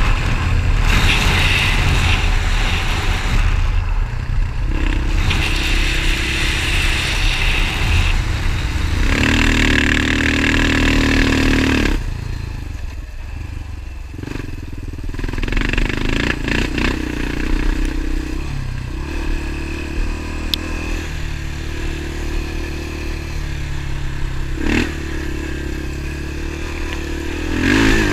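Motorcycle engine running on the move, its pitch shifting as it speeds up and slows down; it eases off about twelve seconds in and picks up again a few seconds later.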